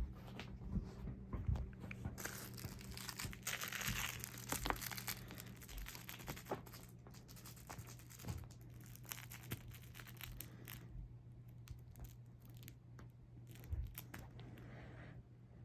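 Crinkling, scratching noises with many sharp clicks, densest a couple of seconds in and thinning to scattered ticks after about ten seconds.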